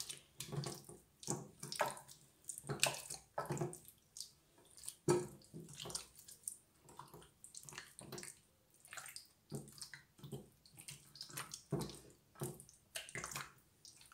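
Wet squelching of hands rubbing a yogurt-and-spice marinade into raw chicken legs in a glass dish, in irregular short squishes.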